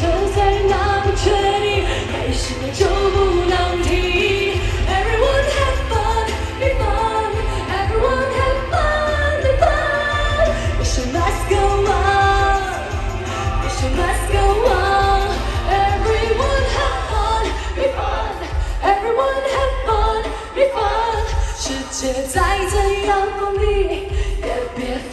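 A Chinese-language pop song performed live over a concert sound system: a lead vocal carrying the melody over a band with heavy bass.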